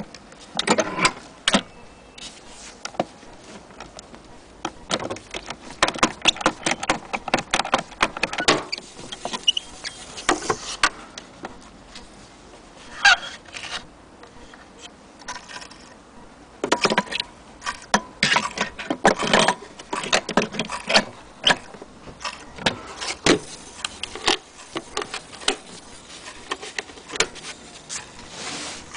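Handling noise on a vintage Maxitone portable gramophone: irregular clicks, knocks and metallic rattles as the lever beside the turntable, the tonearm and the case lid are worked by hand.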